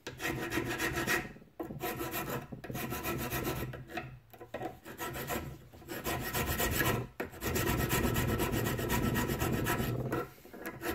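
Flat hand file rasping across a rusty brake caliper bracket held in a bench vise, filing off rust to restore a clean surface. It comes as a series of uneven strokes with brief pauses between them.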